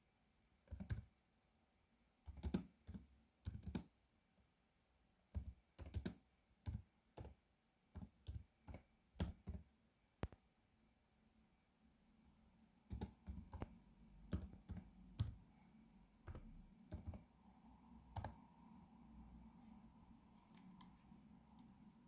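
Slow, uneven keystrokes on a laptop keyboard as a search phrase is typed, then, after a short pause, a second run of clicks. A faint steady hum comes in just past the middle.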